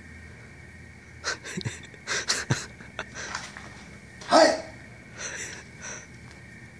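A katana cutting through the air in a sword kata: a quick series of short whooshes mixed with the swordsman's sharp breaths, the loudest one about four and a half seconds in.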